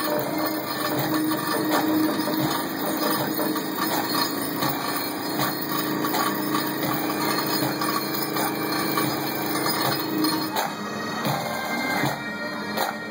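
Komatsu excavator with a drill-auger attachment running, with a steady hum and scattered metallic knocks; the hum stops about ten and a half seconds in.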